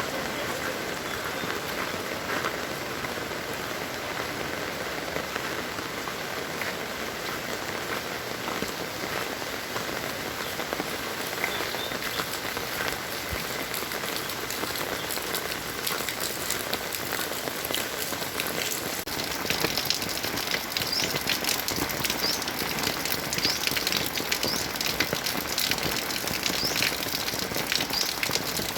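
Heavy rain falling steadily, a dense hiss of drops hitting the ground and nearby surfaces. About two-thirds of the way through, close drop impacts grow denser and a little louder, a crisp patter of ticks.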